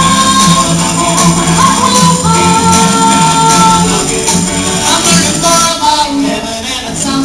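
Upbeat gospel-style song playing, an instrumental stretch with shaken percussion and long held melody notes.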